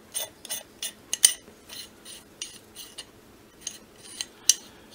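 Wildey Survivor pistol's gas regulator being threaded down onto the barrel by hand: a series of irregular sharp metallic clicks and clinks, a couple a second, sparser after the first second and a half, with two louder clicks about a second in and near the end.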